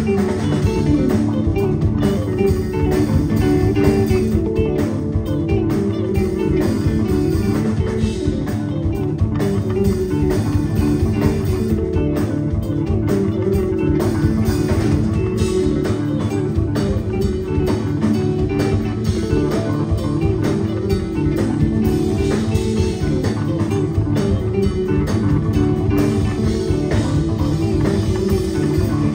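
A live math rock trio playing an instrumental passage: electric guitar, electric bass guitar and drum kit.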